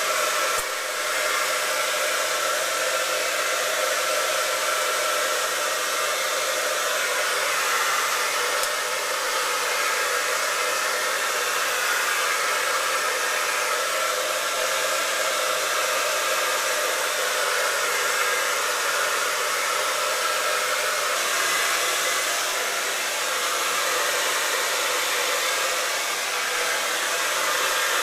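Handheld hair dryer running steadily on high heat: a continuous rushing blow with a faint whine that wavers slightly.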